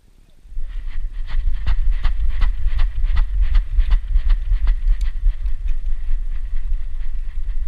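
A dog breaking into a run, heard through a GoPro strapped to its body: rhythmic footfall knocks, nearly three a second, over a heavy wind and handling rumble on the microphone. The rhythm loosens after about five seconds.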